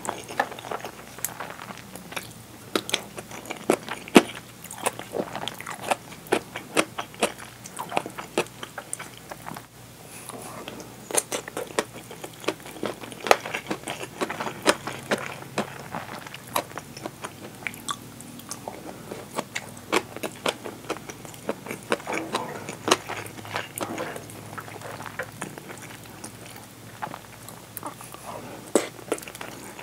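Close-miked chewing of curry and rice: many sharp, wet mouth clicks and small crunches.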